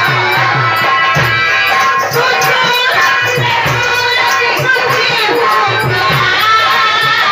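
Live Indian folk stage music. A hand drum beats a steady rhythm of low strokes that drop in pitch, about three a second, with a melody over it.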